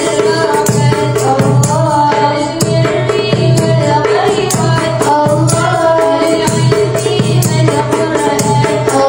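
Sholawat devotional song: women's voices singing a melody through microphones over a darbuka's steady beat and the jingling of hand-shaken tambourines.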